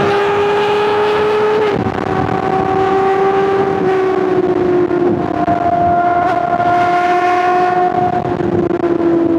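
Honda CBR600RR's inline-four engine held at high revs, a steady high-pitched note that dips briefly near two seconds in and then slowly drops in pitch.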